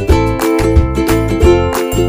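Background music: plucked strings over a steady low beat.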